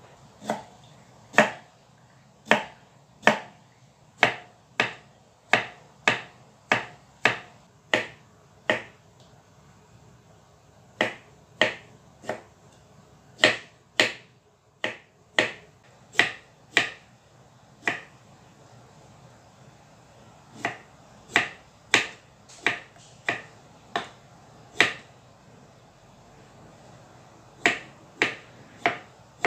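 Kitchen knife slicing bamboo shoots into rounds on a thick wooden chopping block: a sharp knock as each cut hits the wood, about one and a half a second, pausing a few times.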